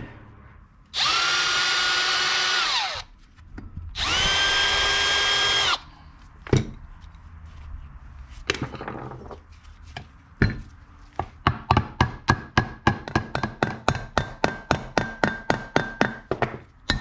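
Power drill-driver running in two bursts of about two seconds each, its whine dropping as each run ends, while the band saw transmission case is taken apart; then a few single knocks and, from about eleven seconds in, an even series of light ringing metallic taps, three or four a second.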